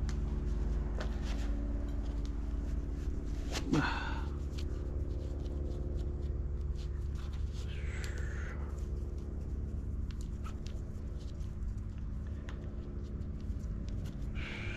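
Sneakers being put on and their laces tied by hand: small scattered rustles and clicks of laces and shoe fabric over a steady low hum.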